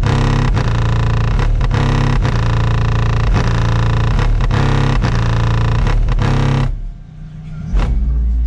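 Loud music with heavy bass and a steady beat played through a car sound system. It drops out for about a second near the end and then comes back.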